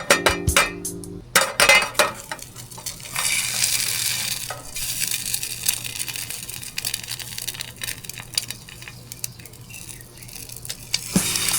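Batter frying in a hot pan, a steady sizzling hiss from about three seconds in, with clicks and clinks of a utensil against the pan in the first few seconds. Background music plays briefly at the start.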